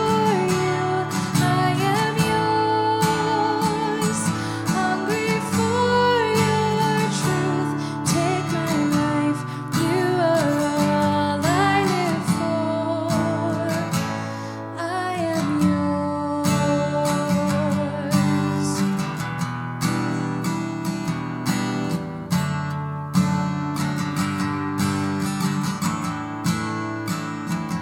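Worship song: acoustic guitar strummed in steady chords under a sung melody that glides and wavers.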